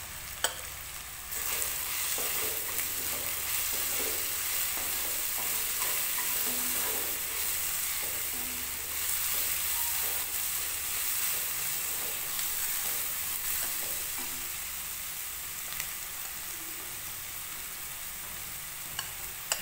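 Onion-tomato masala with freshly added salt, turmeric and red chilli powder sizzling in mustard oil in a kadhai, stirred with a wooden spatula that scrapes and taps the pan. The sizzle grows louder about a second in.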